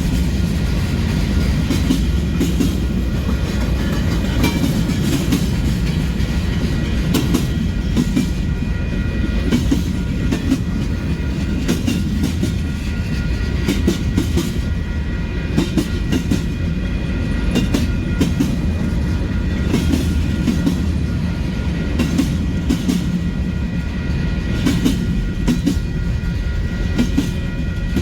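Long Union Pacific freight train rolling past: a steady low rumble of rail cars, with wheel clicks over the rail joints.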